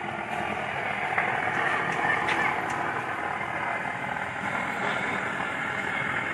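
Steady outdoor street noise of traffic, with voices in the background.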